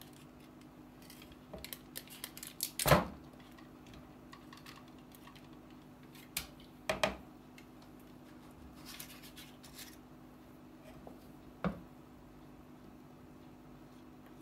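Kitchen handling sounds of filling a metal muffin tin: paper cupcake liners rustling as they are pressed into the cups, with a few sharp knocks and clacks, the loudest about three seconds in, and a spatula scraping batter from a plastic mixing bowl. A faint steady hum runs underneath.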